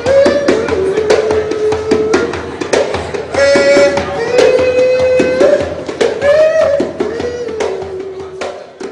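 A man singing long, held notes over hand-drum beats in a steady rhythm, fading out near the end.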